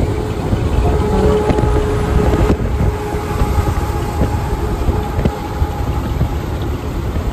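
Semi-truck running at highway speed, heard from the cab with the window open: a steady heavy engine drone with road and wind rush.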